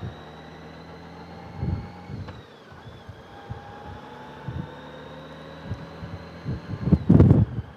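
Motorcycle engine running steadily while riding, with low thumps of wind buffeting the microphone and a louder thump about seven seconds in.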